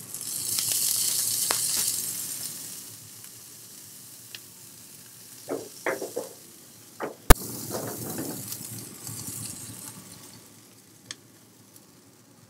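Water squirted onto a hot flat-top griddle sizzling into steam for steaming soufflé pancakes. About halfway through come a few knocks and one sharp metallic clank as an aluminum foil-pan dome is set down over them, then a shorter sizzle.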